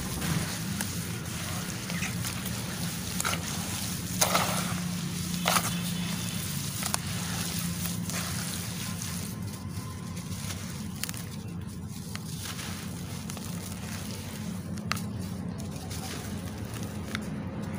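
Crumbly charcoal chunks being crushed by hand into a tub of water: sloshing and splashing with gritty crumbling, and a few sharp cracks, the loudest about four and five and a half seconds in.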